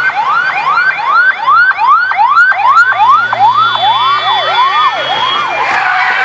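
Ambulance siren in a fast yelp, sweeping up in pitch about three times a second, its pitch sagging as the ambulance passes close by. The siren stops a little after five seconds in, leaving the noise of passing road traffic.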